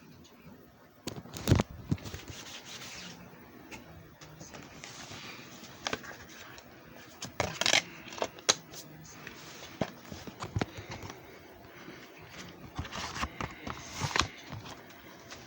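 Irregular clicks, knocks and rubbing of objects being handled, the loudest knock about a second and a half in and clusters of clicks near the middle and toward the end.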